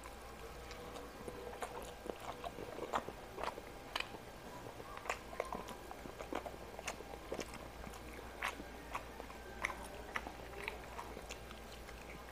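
A person chewing mouthfuls of food close to the microphone, with irregular wet clicks and smacks of the mouth several times a second.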